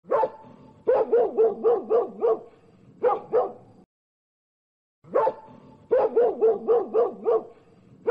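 Recorded dog barking played as a short clip: one bark, then a quick run of about six barks and two more. After about a second's gap the same sequence plays again, identical.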